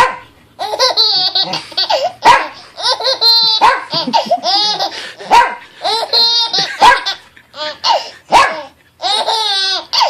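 A six-month-old baby girl laughing in repeated high-pitched bursts, about one every second or so, with brief sharp sounds between the bursts.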